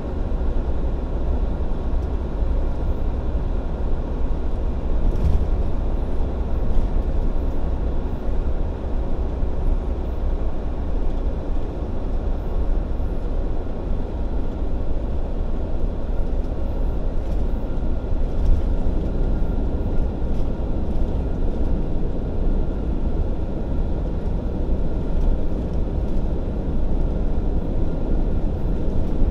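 Tractor-trailer's diesel engine and tyre noise heard inside the cab while driving on the expressway: a steady low drone with a few faint knocks.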